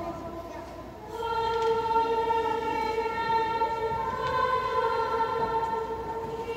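Student schola singing plainchant in long, held notes, with the church's reverberation carrying each phrase. A phrase dies away into a brief lull, and the next begins about a second in.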